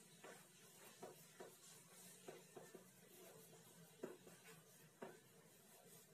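Chalk writing on a blackboard: faint, irregular taps and short scratches.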